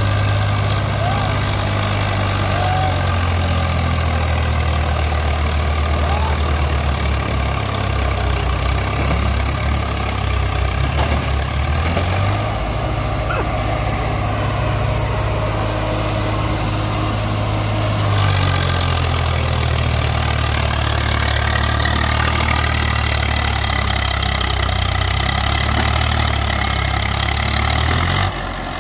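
Heavy diesel engine of a farm tractor or backhoe loader running steadily, its note shifting a couple of times. It cuts off abruptly near the end.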